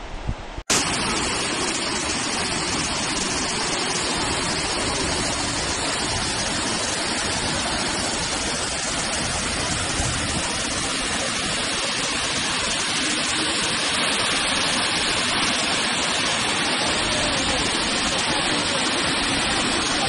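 Steady, loud rush of a tall waterfall cascading down rock faces and over boulders at close range. It cuts in suddenly less than a second in, after a brief dip.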